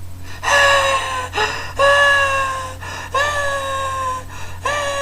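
A man screaming as a frightened man: four long, high-pitched held screams of about a second each, with quick gasps for breath between them.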